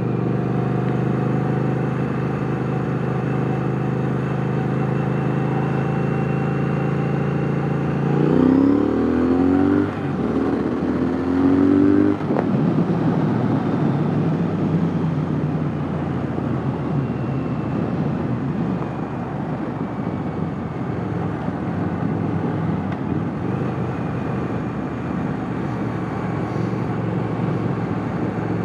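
Triumph parallel-twin motorcycle engine cruising steadily, heard from the rider's seat, then revving up through two gears about eight to twelve seconds in. After that it settles at higher speed with a rushing noise over a fainter engine note.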